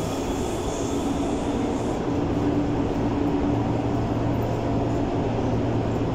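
Berlin U-Bahn type H train running through a tunnel, heard from inside the passenger car: a steady rumble of wheels on rails with a steady low hum.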